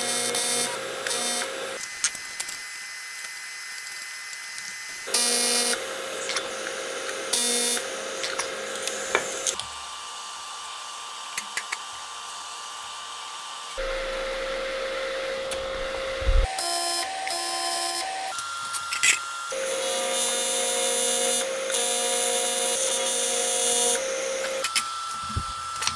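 AC TIG welding arc on aluminum, a steady buzz with a high hiss that starts and stops in runs of a few seconds as seams are tacked and welded, with quieter pauses between.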